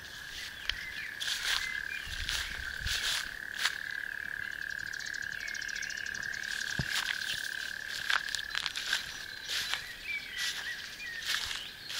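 Frogs calling from the water: a steady trilling chorus held at one high pitch, with footsteps and rustling through grass over it.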